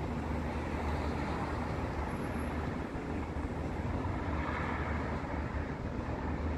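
Road traffic from cars passing on a street, swelling as one car goes by about four to five seconds in, with wind rumbling on the microphone.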